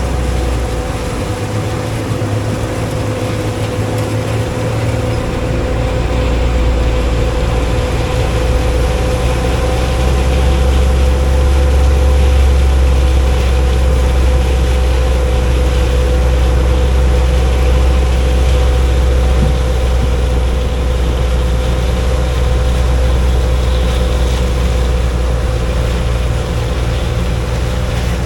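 Combine harvesting soybeans: a steady engine and machinery drone with a low rumble that grows heavier about five seconds in.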